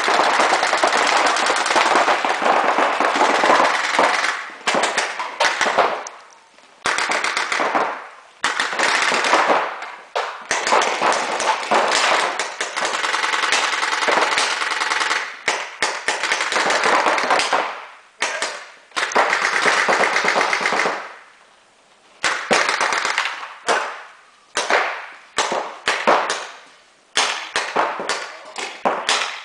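Reball markers firing long, rapid strings of shots at rubber balls' pace, several seconds at a time with short pauses between. In the last third the volleys turn shorter and more broken.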